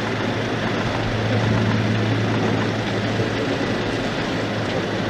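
Ilyushin Il-96-300PUM's four PS-90A turbofan engines on landing approach: a steady jet rumble with a low hum, swelling slightly around a second and a half in.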